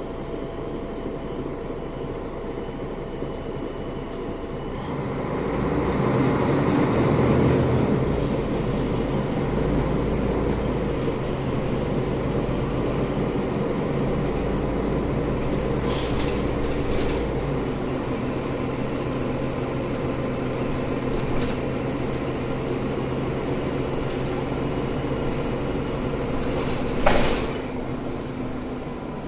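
Mercedes-Benz O530G Citaro G articulated city bus heard from inside the passenger cabin on the move: its diesel engine runs steadily, pulling harder and louder from about five seconds in. A high thin whine stops about five seconds in, and a short sharp noise stands out near the end.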